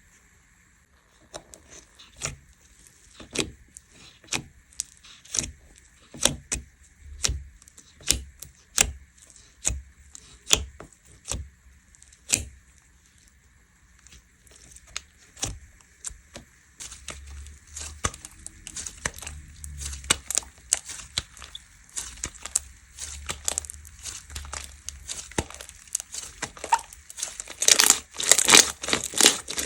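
Hands squeezing, poking and stretching slime, making sharp wet pops and crackles: single clicks spaced about half a second to a second apart at first, then thicker, faster crackling in the second half, loudest near the end.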